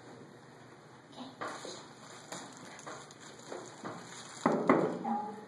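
Spoon stirring and scraping hummus in a glass bowl, with a few light clinks, then a louder short burst of noise near the end.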